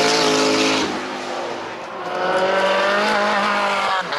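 High-performance car engine revving under acceleration. The pitch sags and the note eases off about a second in, then climbs steadily until it breaks off sharply near the end, like a gearshift.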